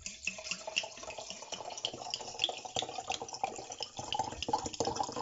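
A drink being poured steadily into a glass.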